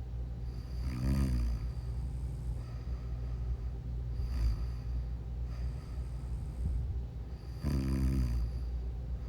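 A sleeping person snoring: two loud, pitched snores, one about a second in and one near the end, with softer breaths between them, over a steady low hum.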